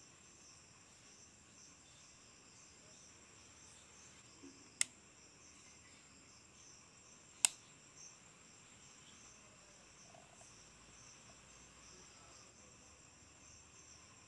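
Faint chorus of crickets, a steady high trill, with two sharp clicks, one about a third of the way in and a louder one about halfway.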